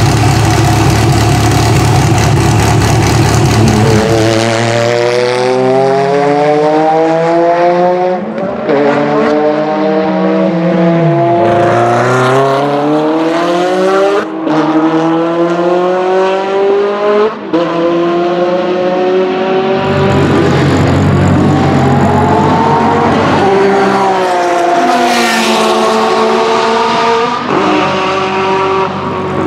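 Ferrari 360 GTC race car's 3.6-litre V8 running with a steady low note at first, then at full acceleration, its pitch climbing and falling back at each upshift, several times over.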